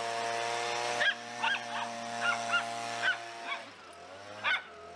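Miniature schnauzers yipping and barking in play, about eight short sharp barks, over the steady drone of a leaf blower that winds down and stops about three and a half seconds in.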